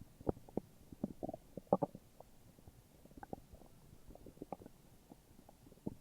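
Human stomach growling: a run of irregular gurgles and pops with a few short squeaky rumbles, the loudest about a second and three-quarters in.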